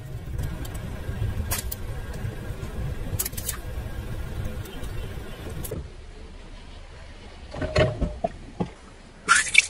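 Car running slowly with a low engine rumble and a few sharp cracks. The rumble drops away about six seconds in, followed by short crackling crunches and a louder crunch near the end, as objects break under the car.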